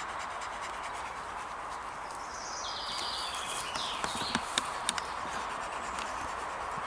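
Steady outdoor background noise with a short, high chirping call about two to four seconds in and a few sharp clicks around four to five seconds in.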